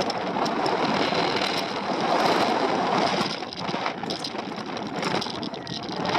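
Wind rushing and buffeting over the microphone of a hang glider's wing-mounted camera as the glider launches off the ramp and flies in the airflow along the ridge.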